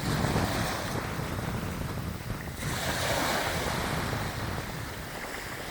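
Ocean waves breaking and washing in, with a wave surging up about halfway through, and wind rumbling on the microphone.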